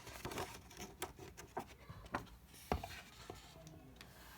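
Faint rubbing of paper with several soft clicks and knocks: a picture book being handled and its page turned.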